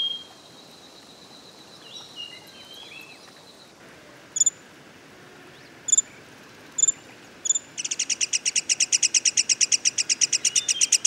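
Black-headed Sibia calling: four short, sharp high notes spaced about a second apart, then from about 8 seconds in a fast, even chattering trill of about ten notes a second.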